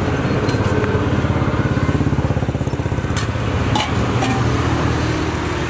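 An engine running steadily nearby, a fast-pulsing low rumble, with a few light metallic clinks of steel vessels about three and four seconds in.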